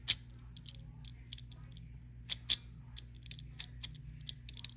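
Heavy metal haptic fidget toy worked in the hand, giving a string of sharp, irregular clicks like a switch snapping up and down. The loudest click comes just at the start, with two more strong ones a little past two seconds in. A steady low hum runs underneath.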